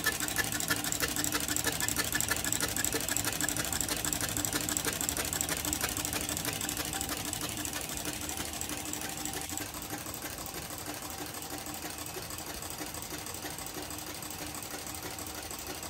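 Fuel injectors on a flow-test bench firing rapidly into glass beakers: a fast, even mechanical clicking with a steady hum underneath, slowly growing fainter.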